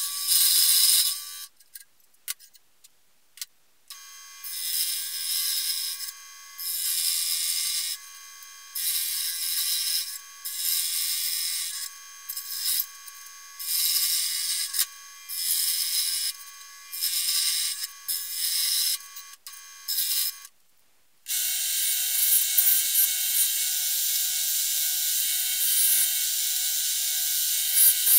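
Scroll saw running as its blade saws through an aluminium plate, in stretches of a second or two broken by short pauses. About three quarters of the way through, this gives way to a bench disc sander running steadily with a held tone, the aluminium disc being sanded against it.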